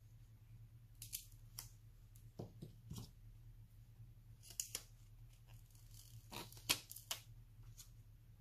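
A clear lace-edged sticker being handled with plastic tweezers: a scatter of small crisp clicks and crinkles as it is lifted and pressed onto paper, the sharpest about two thirds of the way through.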